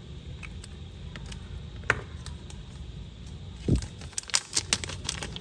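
Zippo lighters handled by hand: scattered sharp metal clicks and light knocks, with a dull thump a little before four seconds in and a quick run of clicks just after it, over a steady low hum.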